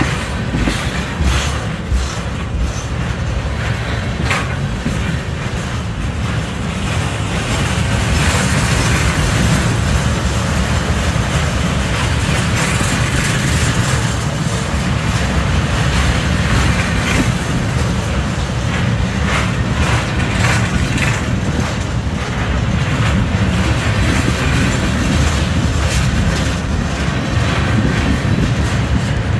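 Flatcars of a slow-moving CSX welded-rail train rolling past close by: a steady rumble of steel wheels on the rails, with sharp clicks over the first several seconds, growing louder about eight seconds in.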